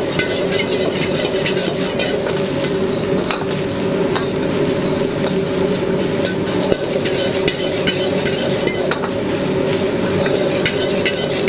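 Egg fried rice with shrimp sizzling in a steel wok while a metal ladle stirs and scrapes it, with scattered clinks of the ladle against the wok. A steady low drone runs underneath.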